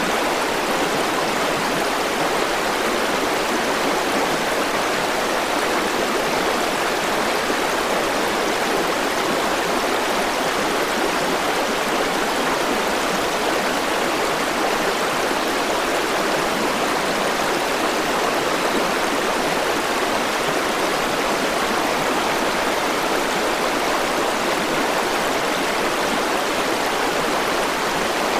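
River water rushing steadily over stones, a constant even roar of flowing water.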